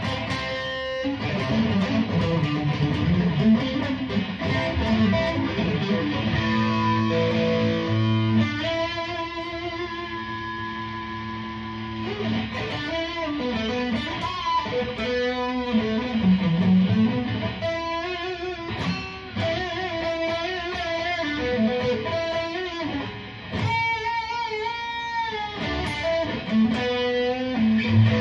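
Aria Pro II RS Wildcat electric guitar played plugged in: a lead line of picked single notes and held notes, with string bends and vibrato.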